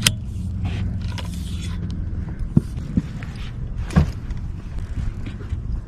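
Boat motor running steadily at trolling speed, a low hum, with a few sharp knocks and clicks from gear handled aboard, the loudest about four seconds in.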